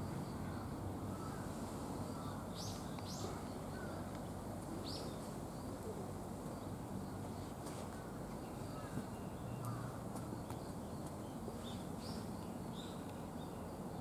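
Small birds chirping now and then in short high calls, over a steady low background hum.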